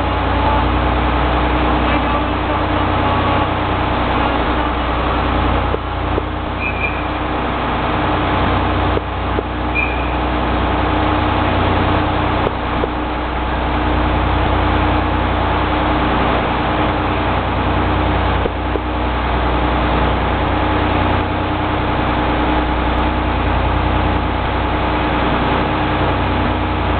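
Steady low hum of railway equipment at a station platform while an EF65 electric locomotive moves slowly up to couple to the train. Two short high beeps sound about seven and ten seconds in.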